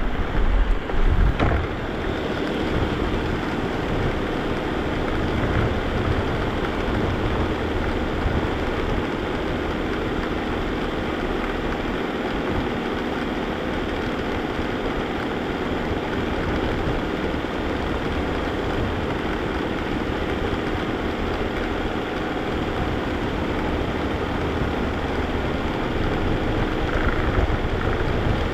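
Vacuum cleaner running, heard close up, with a steady whine and a low rumble that shifts as it is pushed over the floor. There are a few heavy knocks in the first second or two.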